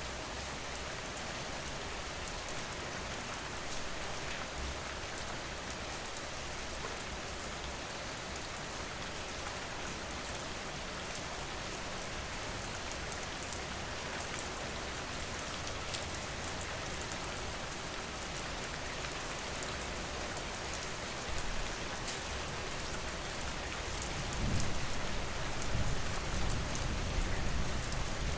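Steady rain falling: an even hiss with single drops ticking through it. A low rumble swells in near the end.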